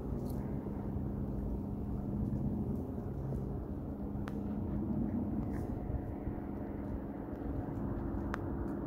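A steady low motor hum, with a few faint clicks.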